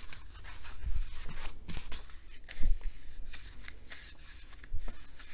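Pages of a large art book being turned by hand: paper rustling and flapping, with a few soft thumps as the pages land, the loudest a little past the middle.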